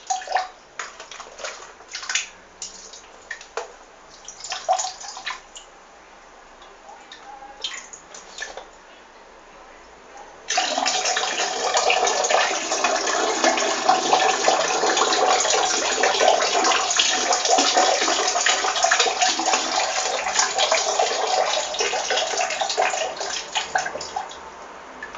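A person urinating into water: intermittent short spurts and dribbles, then a full, steady stream starts suddenly about ten seconds in and keeps running, easing off slightly near the end.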